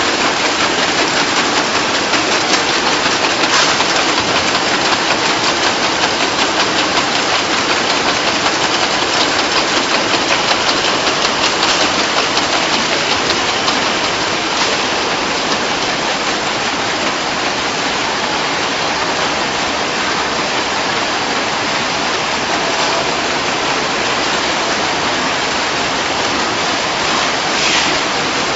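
Chewing gum production and wrapping machinery running in a factory hall: a loud, steady mechanical din with a rapid clatter that is strongest in the first half.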